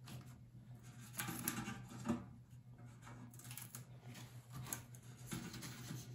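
Faint, irregular rustling and light tapping of hands rubbing and fingering the clear plastic backing film of a rub-on transfer on a tin pail.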